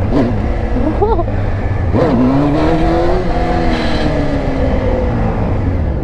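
Honda RR sport bike's inline-four engine under throttle: quick revs in the first second, a sharper rise at about two seconds, then the pitch slowly falls as the rider eases off. Wind rumble on the head-mounted camera lies underneath.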